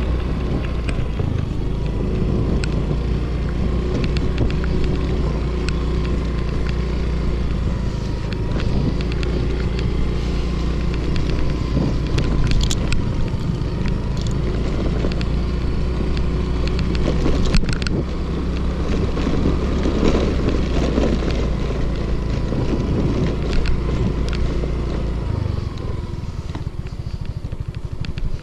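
Small motor scooter's engine running under way over a rutted sand track, with a few sharp knocks and rattles from the bike over the bumps. Near the end the engine note drops and the sound gets quieter as the throttle eases.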